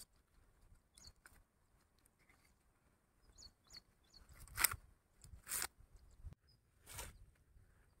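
Maize husks being torn off the cobs by hand: three short tearing rustles, about four and a half, five and a half and seven seconds in.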